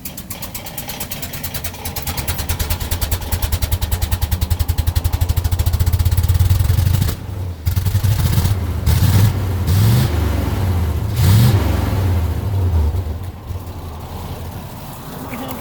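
1979 GMC truck engine being cranked by its starter, the cranking rhythm growing louder and quicker for about seven seconds until it catches, then revved several times before settling to a lower run. It is a hard start, which the owner puts down to a carburetor problem.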